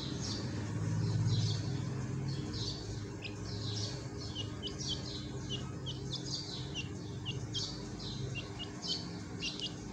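Partridge chick peeping: a steady run of short, high chirps, each falling in pitch, about two or three a second. A low hum sits under the first couple of seconds.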